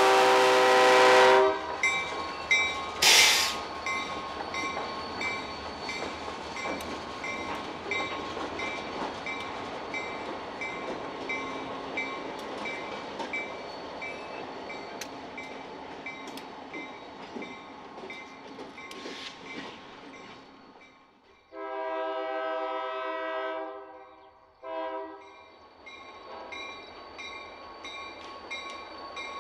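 Diesel locomotive air horn finishing a blast, then a short freight train rolling slowly over a grade crossing with the crossing bell dinging steadily and a sharp burst of noise about three seconds in. About 21 seconds in the rolling stops and a locomotive horn sounds one long blast and then a short toot.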